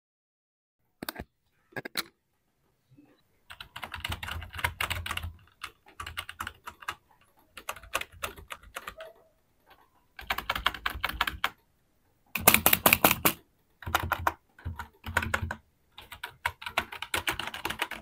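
Typing on an MSI Vigor GK20 gaming keyboard: a few single key presses near the start, then bursts of rapid key clicks separated by short pauses. The loudest burst comes about two-thirds of the way through.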